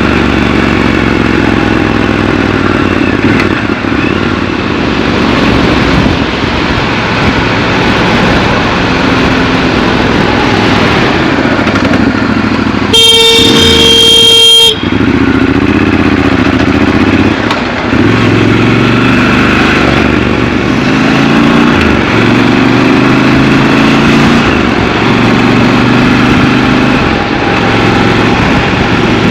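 Triumph Scrambler 1200 XC's parallel-twin engine running through city riding, rising and falling in pitch as it revs and eases off. About halfway through, a loud vehicle horn sounds once for nearly two seconds.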